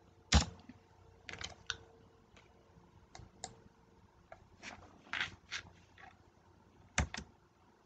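Scattered, irregular clicks and taps from a computer mouse and keyboard, about ten in all, with the sharpest about a third of a second in and a close pair about seven seconds in.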